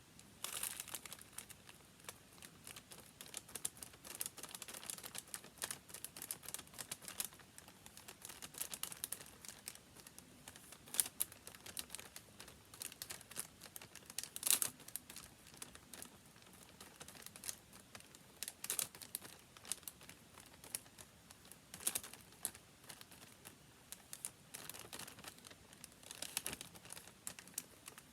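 Paper being handled while watercolour swatches are made: soft crinkling and rustling with many small clicks and a few sharper taps now and then.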